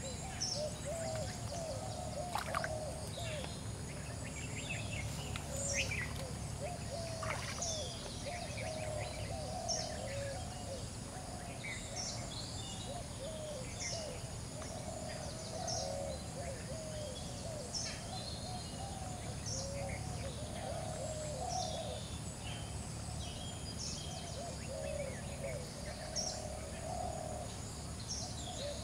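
Birds calling and chirping outdoors: a steady run of short, low, repeating calls with higher chirps scattered over them, above a steady low background noise.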